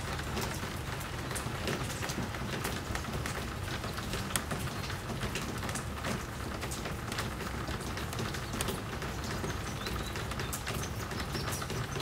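Steady rain falling, with many single drops tapping close by, over a low steady rumble. Birds call faintly in the background.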